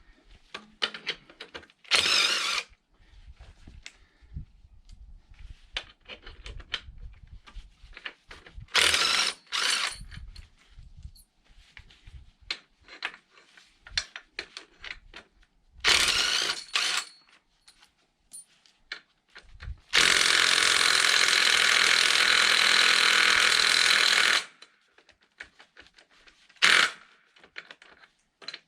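DeWalt 3/8-inch cordless impact wrench hammering on tractor wheel lug nuts: several short bursts, then one long run of about four seconds near the end, with small clinks and clicks of socket and nuts between. The small gun is failing to break some of the nuts loose.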